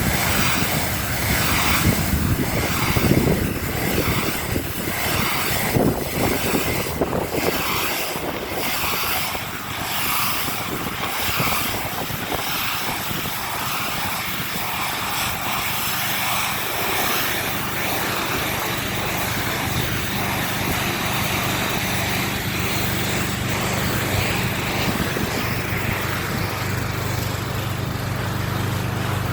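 Pressure washer running: the hiss and spatter of the water jet over the steady drone of its motor. A bit past halfway the spatter eases and the motor's steady hum comes to the fore.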